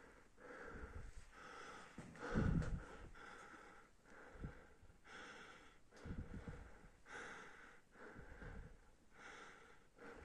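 A person's heavy breathing, in and out about once a second, from exertion in a low, cramped cave passage. There are a few low thumps, the loudest about two and a half seconds in.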